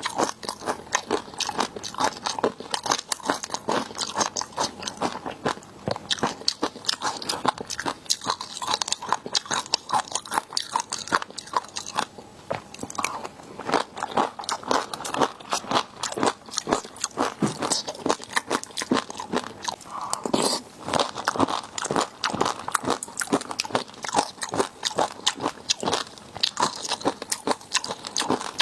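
Close-miked eating: continuous crunching, biting and chewing of seafood, with many sharp crunches a second.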